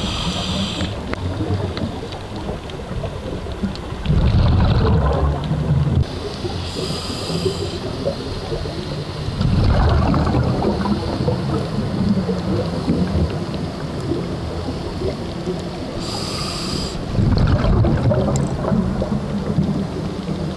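A scuba diver's regulator breathing underwater, three times: each breath is a short hissing inhale, followed a few seconds later by a longer, louder rumble of exhaled bubbles, over a steady low underwater rumble.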